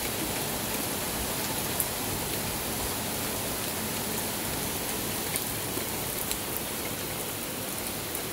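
Steady rain: an even hiss of falling rain, with a few sharp ticks of single drops striking close by.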